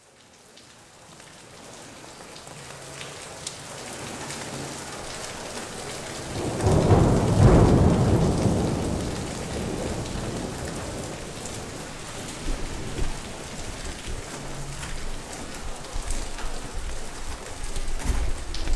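Rain falling, fading up from silence, with a long roll of thunder about seven seconds in; the rain then carries on steadily with scattered sharp drop sounds.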